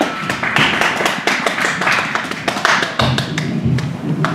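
Spectators clapping, with many sharp taps and knocks mixed in among the claps.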